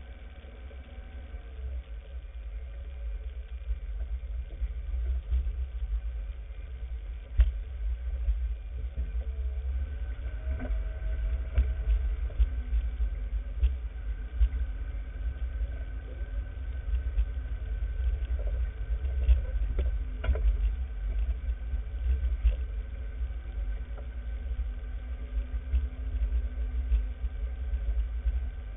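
Off-road vehicle driving slowly over a rough, rocky trail: a steady low engine rumble, with a few sharp knocks as it jolts over bumps.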